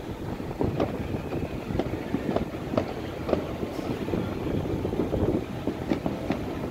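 Fireworks going off around the area: a string of irregular sharp pops and bangs, roughly one to two a second, over a steady low rumble.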